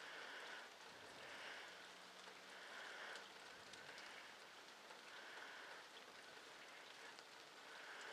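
Faint rain falling steadily, with scattered soft drip ticks.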